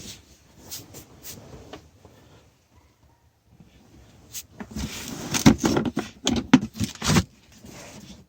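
Hard plastic Milwaukee Packout cooler and cases being handled: a few light clicks, then a run of loud plastic knocks and clunks about five to seven seconds in, as the cooler is unlatched from its mounting cleat and set on another case to stack.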